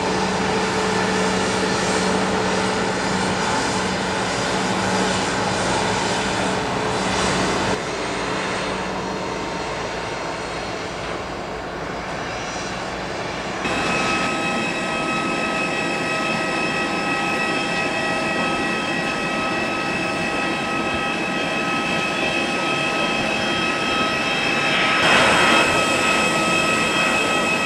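Bombardier Challenger 850's GE CF34 turbofans running at taxi power, a steady jet whine. About 14 seconds in it changes abruptly to a Cessna Citation XLS+ arriving on the runway, its Pratt & Whitney PW545 turbofans giving a higher, steady whine. A swell of rushing noise comes near the end.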